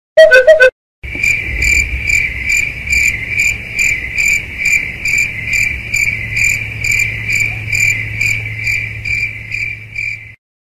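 A brief loud pitched sound, then a steady high insect-like chirping that pulses about twice a second over a low hum and cuts off abruptly.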